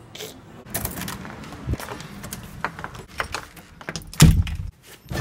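Keys jangling and a door's lock and knob clicking and rattling as it is unlocked, with a loud thud about four seconds in as the door is opened.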